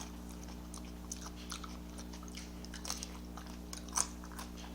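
A person chewing food close to the microphone: scattered small wet mouth clicks and light crunches, with a sharper crunch or click about four seconds in, over a steady low hum.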